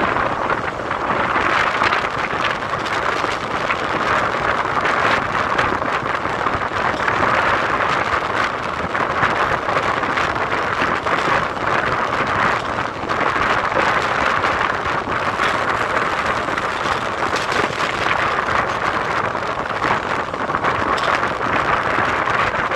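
Steady rushing noise of a train in motion, with wind on the microphone.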